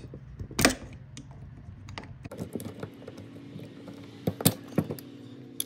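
Metal pliers clicking and scraping against the metal housing of a Porter-Cable finish nailer while a stuck trigger valve is worked loose. A few sharp clicks come, the loudest about half a second in and a small cluster near the end.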